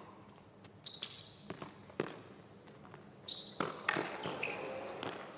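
Tennis serve and baseline rally on a hard court: a string of sharp racket strikes on the ball, with ball bounces between them.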